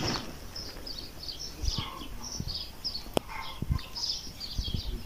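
Small birds chirping over and over in short, high calls, with a sharp click about three seconds in and a few low thuds.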